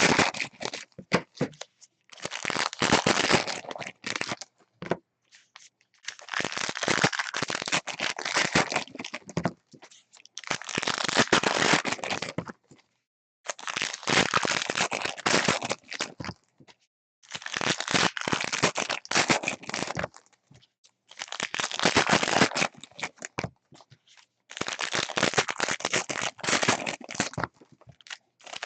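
Foil trading-card pack wrappers crinkling and tearing as packs are ripped open by hand, in about seven bursts of a few seconds each with short pauses between.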